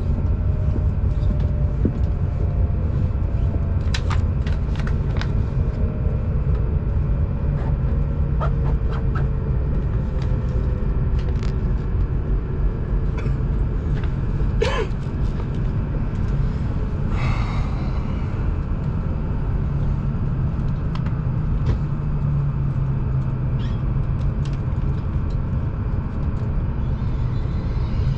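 Shinkansen bullet train running at speed, heard from inside the passenger cabin as a steady low rumble. There are scattered light clicks and creaks, and a faint whine that slowly drops in pitch over the first half.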